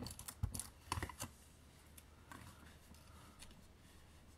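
Hands handling a paper mini album and a die-cut paper butterfly on a craft mat: a quick run of light taps and clicks in the first second or so, then only faint rustling.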